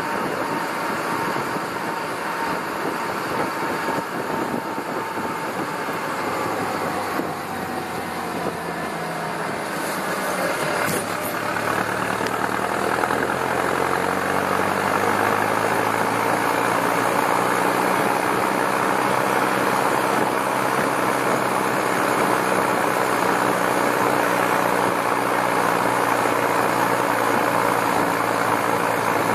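Massey Ferguson 5455 tractor's four-cylinder turbo diesel running, heard close to its exhaust stack; about eleven seconds in it comes up in revs and settles into a louder, steady drone.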